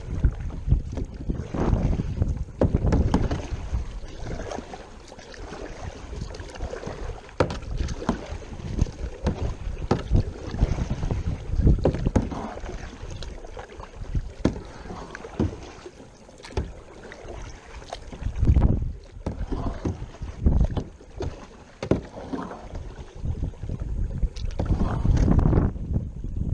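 Gusty wind rumbling on the microphone aboard a kayak, surging and easing every second or two, with water splashing and a few sharp knocks.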